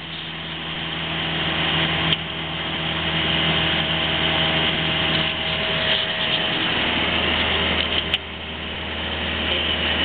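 Toyota Hiace van's diesel engine labouring up a hill with a trailer in tow, growing louder as the revs climb. It dips briefly about eight seconds in, then builds again before cutting off sharply.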